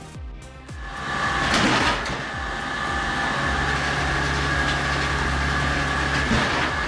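A firewood-processing machine running: a steady engine or motor hum under a held high whine, with a louder surge about a second and a half in.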